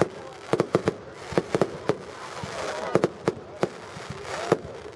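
Fireworks going off: about a dozen sharp, irregular bangs and crackles.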